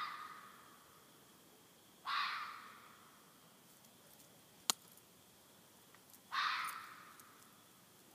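Three loud, harsh animal screams a few seconds apart, each cutting in suddenly and trailing off over about a second, which the uploader takes for a fisher (fisher cat). A single sharp click falls between the second and third screams.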